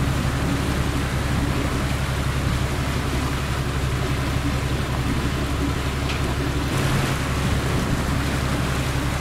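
Sightseeing boat's engine running steadily as a low, evenly pulsing hum, under a steady rush of water and wind noise.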